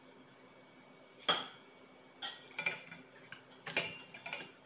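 Tongs and dishes clinking and knocking against ceramic bowls on a kitchen counter: one sharp knock about a second in, then a scatter of lighter clicks and taps.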